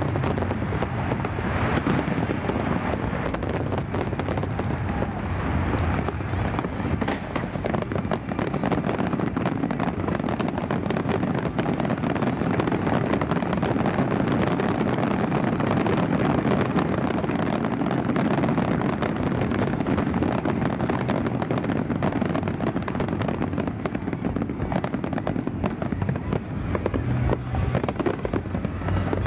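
Dense barrage of aerial fireworks shells bursting, a continuous rapid crackle of many sharp reports and booms with no letup.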